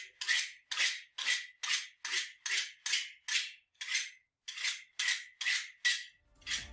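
Utility knife blade scraped repeatedly along the edge of an aluminium plate, cutting Kapton tape off flush: short scrapes, about two or three a second, each with a faint ringing tone. Music comes in at the very end.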